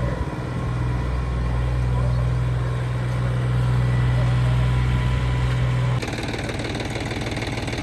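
John Deere tractor's diesel engine running steadily as it pulls a disc harrow through the field. About six seconds in it changes abruptly to a closer, rougher, clattering engine sound.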